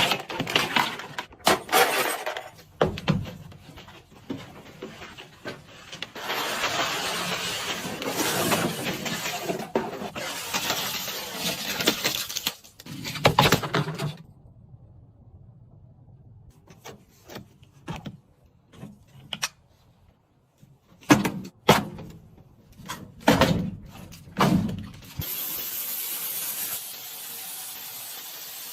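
Handling noises from taking a car apart: irregular knocks, clicks and stretches of scraping and rustling, with a few sharp knocks. Near the end a steady spraying hiss starts.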